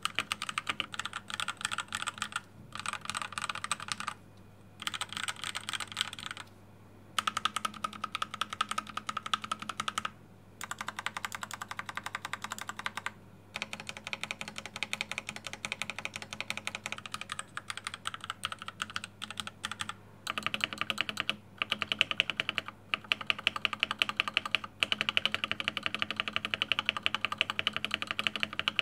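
Typing on a Rexus Daxa M84 Pro mechanical keyboard with Keychron yellow linear switches, lubed and filmed: quick runs of keystrokes in bursts of a few seconds, broken by brief pauses.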